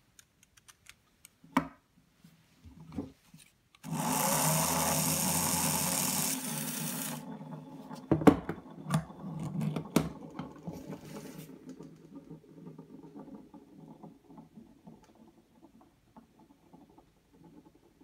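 Lego Technic electric motor driving a gear train, whining steadily for about three seconds as it spins up a gear used as a spinning top. The motor cuts off, and the top drops onto the wooden table with a sharp knock and a couple of clacks, then spins with a rattling whirr that fades as it slows.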